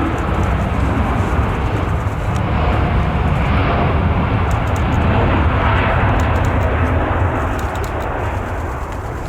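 Jet airliner's engines running as it passes, a loud steady roar that swells to a peak about five or six seconds in and then eases off near the end.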